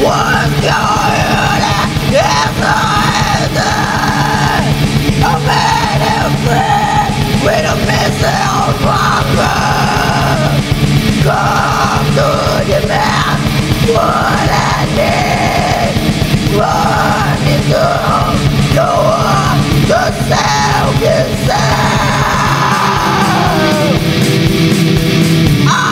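Black metal song: harsh screamed vocals over distorted guitars and fast, dense drumming, ending on a long scream that falls in pitch.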